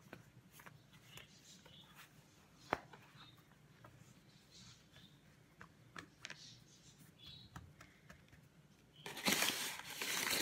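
Hands handling a sheet of rolled-out dough on a wooden cutting board: faint scattered taps and rubbing, with a sharp knock about three seconds in. Near the end comes a louder rubbing, rustling sound lasting about a second.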